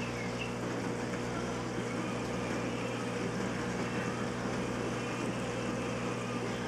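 Aquarium pump running with a steady low hum over a constant hiss of moving, bubbling water.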